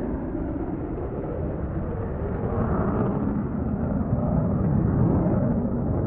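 Aircraft engine noise at an air show, a steady rumble that grows louder toward the end as the plane comes closer.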